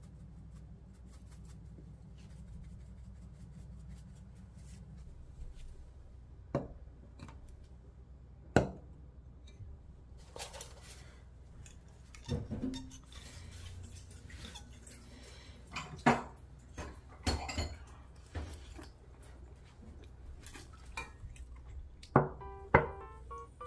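Dishes and cutlery clinking and knocking now and then, a series of separate sharp clinks spread through the stretch, over a low hum that fades after about five seconds.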